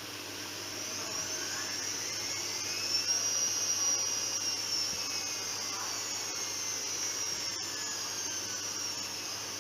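Zanussi ZWF 1432 washing machine's motor whining as the drum speeds up, then slowly winding down. The high whine rises in pitch over the first few seconds and falls away gradually after that.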